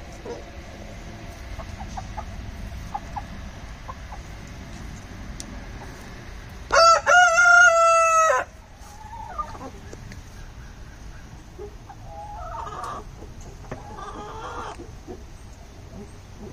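A rooster crows once, loud and about a second and a half long, roughly seven seconds in. Softer chicken clucking follows a few seconds later.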